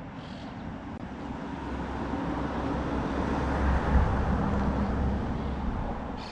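Kawasaki Versys 650 parallel-twin motorcycle engine running on the road, with wind rushing past. It grows louder to a peak about four seconds in, then eases off.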